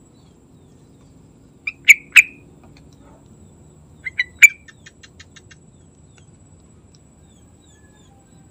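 Yellow-vented bulbul calling: two short phrases of two or three quick, loud notes, about two seconds apart. The second phrase trails off into a faint rapid run of ticks.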